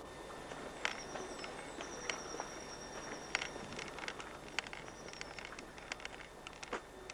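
Footsteps on a dry forest path, irregular sharp steps over a steady outdoor hiss. A thin high steady note, like an insect, sounds in three stretches: about a second in, for about a second and a half from two seconds in, and again around five seconds.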